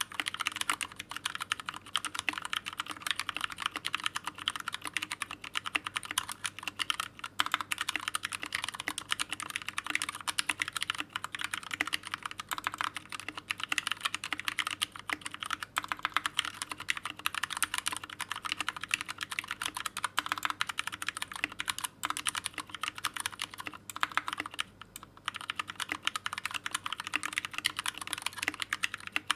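Fast, continuous typing on a modded Pressplay Apollo61 mechanical keyboard with lubed Gateron Brown tactile switches and foam added to the case: a dense run of keystroke clicks with a short pause about 25 seconds in.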